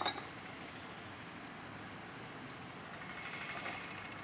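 Faint bird chirps outdoors, a quick run of short high notes in the first couple of seconds, over a quiet background, with one sharp knock right at the start.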